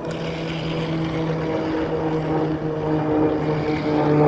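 Boat motor running steadily with an even, low hum.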